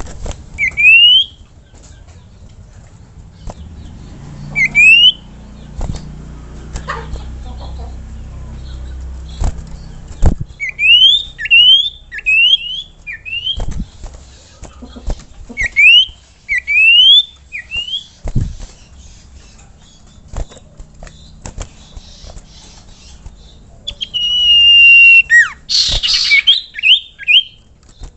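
Common iora (cipoh) calling: short rising whistles, first singly and then in quick runs of three or four. Near the end comes a long held whistle and then a loud harsh burst, followed by a few more rising notes. Scattered sharp clicks sound underneath.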